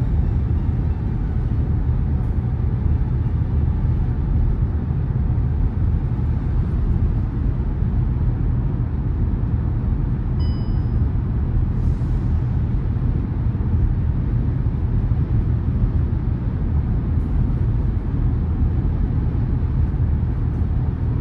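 Steady road and tyre rumble inside the cabin of a 2021 VW Tiguan cruising at motorway speed, about 120 km/h. About ten seconds in, a short high electronic chime sounds: the driver-assist system's prompt to take over the steering.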